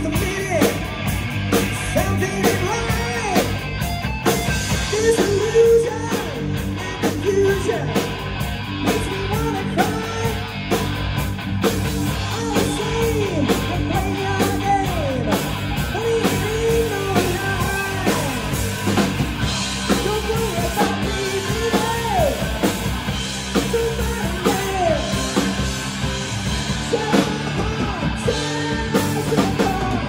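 Live rock band playing: a man singing into a microphone over electric guitar through a Marshall amplifier and a drum kit.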